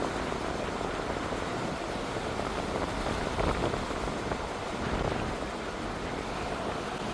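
Ocean surf washing in, a steady rushing noise that swells slightly a few times, with wind on the microphone.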